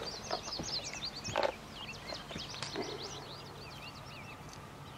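Songbirds singing: many quick, high chirps and short rising and falling notes overlapping, with one brief, louder and lower sound about a second and a half in.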